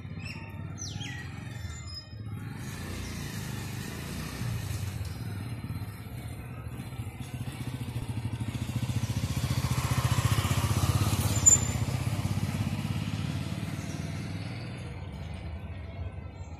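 A motor vehicle engine, a steady low drone that grows louder to a peak about ten seconds in and then fades away, as of a vehicle passing by. A single sharp click sounds just after the peak.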